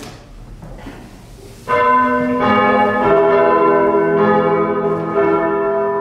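Church bells rung by hand on ropes, starting to sound just under two seconds in. Several strokes follow within a couple of seconds, and their tones hang on and overlap in a loud, steady ringing.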